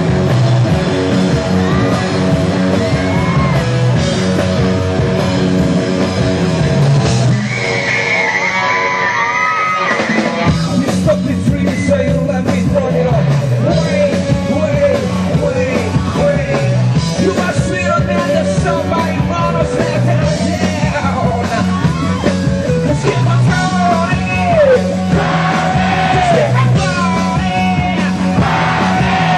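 Live rock band playing loudly: electric guitar and bass under a man singing and shouting into a microphone.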